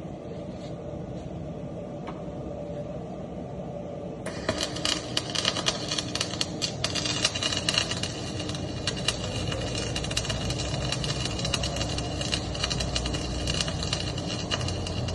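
Low steady workshop hum, then about four seconds in an electric welding arc strikes and keeps crackling and sputtering.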